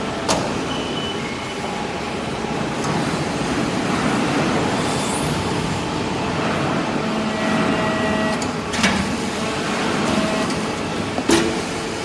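Hydraulic steel-chip briquetting press running: steady mechanical noise of the machine and its hydraulic power unit, with a few sharp clanks.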